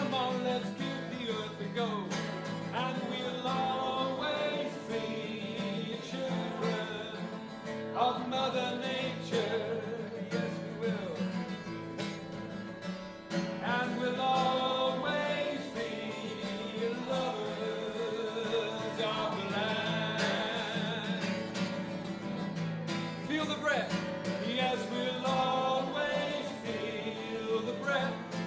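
Acoustic guitar played with singing, a live song performance continuing without a break.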